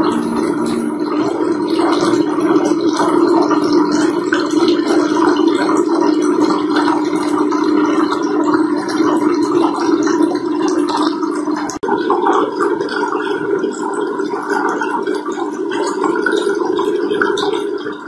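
Water from a homemade four-stream tabletop waterfall fountain falling in thin streams over its ledges and splashing into the basin, a steady running-water sound with a brief drop about twelve seconds in.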